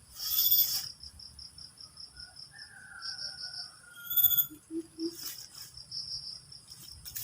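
Insects chirping in a fast pulsing rhythm, about ten pulses a second, over a steady high buzz. Two brief louder sounds come through, one about half a second in and one about four seconds in.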